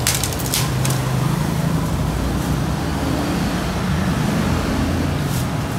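Steady road traffic on a busy street, with the low hum of passing motorbike and car engines. A few short crackles of plastic packaging come within the first second and once more near the end.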